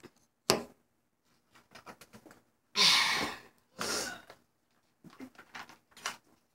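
Two loud breathy huffs right at the microphone, the first about three seconds in and the second just after, among light clicks and bumps as the recording device is handled.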